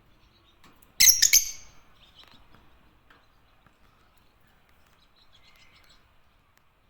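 Lovebirds (Agapornis) calling: a short burst of several loud, shrill chirps about a second in, followed by a few faint, scattered chirps.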